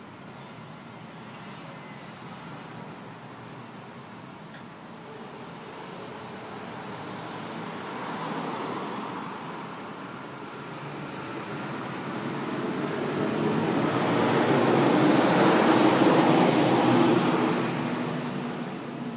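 A motor vehicle driving past, its engine and tyre noise building slowly, loudest about three quarters of the way through, then fading away.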